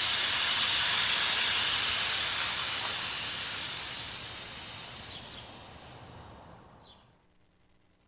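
A long produced hissing whoosh from a radio station-ID jingle, loud at first and fading away steadily until it dies out about seven seconds in.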